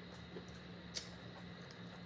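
Quiet room tone with a faint steady low hum and one short, sharp click about a second in.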